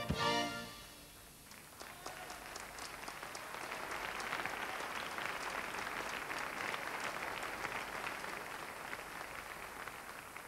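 Audience applause: the dance music cuts off right at the start, then clapping builds over the next few seconds, holds steady and slowly thins out.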